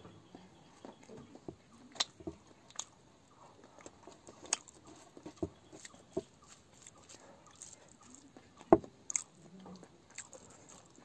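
A person eating rice and curry by hand: chewing and lip smacks, with sharp clicks scattered through, the loudest about three-quarters of the way in.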